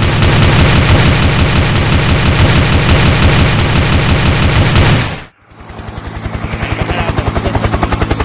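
Machine-gun fire sound effect, a rapid unbroken string of shots that cuts off suddenly about five seconds in. A helicopter rotor sound effect then fades in with a fast, steady chop.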